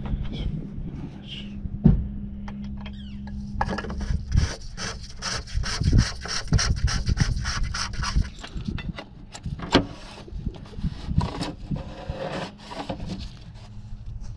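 Oil filter housing cap on a Mercedes W163 ML engine being screwed back on by hand, the cap's threads rubbing and scraping in a quick run of short strokes that then thin out.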